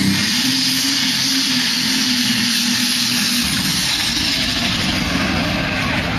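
Modified pulling tractor's engine running flat out under load as it drags a weight-transfer sled, a loud steady engine note over a dense roar. The steady note drops away about three and a half seconds in.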